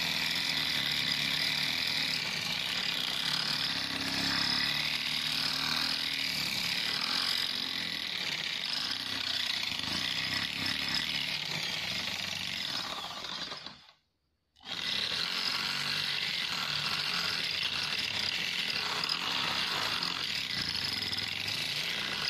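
Corded electric drill running, its bit cutting into a metal exhaust flange to enlarge a bolt hole. About two-thirds of the way through it stops for about a second, then runs on.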